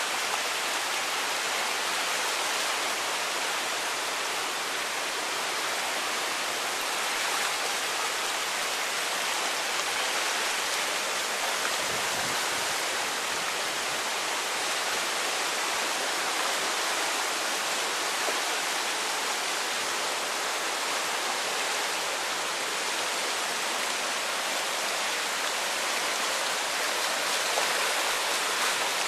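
Floodwater rushing steadily in a swollen creek running at a record-high flood level.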